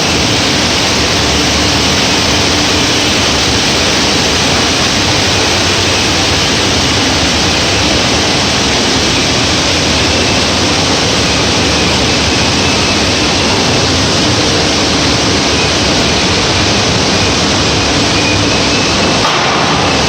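Industrial packaging machinery running: a steady, loud mechanical noise with a faint hum under it and no distinct strokes or rhythm.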